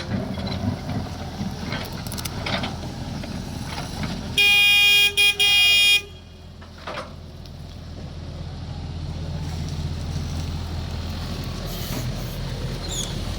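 A vehicle horn honks loudly about four seconds in, one blast of about a second and a half broken by two brief gaps, over the steady low running of a JCB backhoe loader's diesel engine, which grows gradually louder afterwards. A few knocks sound in the first seconds.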